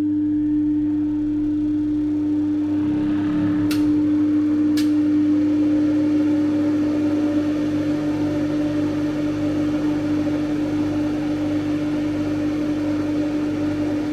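Three-phase electric motor running with a steady electrical hum. A tone rises in pitch a few seconds in, and two sharp clicks come about a second apart.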